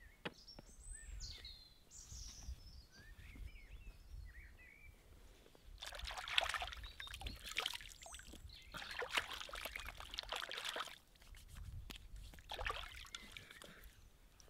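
Lake water splashing and dripping as a person scoops it up in cupped hands and pours it over the head and face, in three bursts from about six seconds in. Before that, a small bird chirps a few times.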